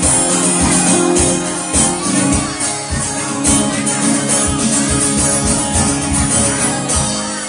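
Live band music, instrumental with no singing: sustained guitar and bass notes over a steady beat, with low drum hits about every 0.6 seconds and bright jingly percussion on top.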